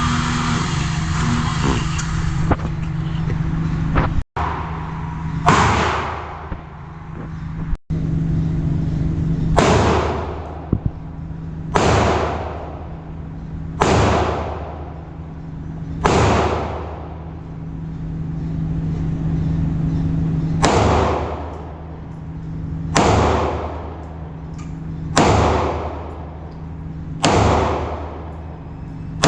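Ruger EC9s 9mm pistol being fired in slow, deliberate single shots, about nine of them, one every two seconds or so, each a sharp crack with a ringing tail, over a steady low hum.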